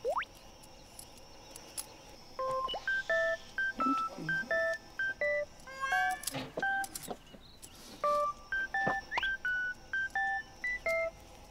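Playful electronic background music made of short, clean beeping notes in a quick hopping melody, starting a couple of seconds in. A rising whistle-like glide comes right at the start and again near the end, with a fast rising run of notes in the middle.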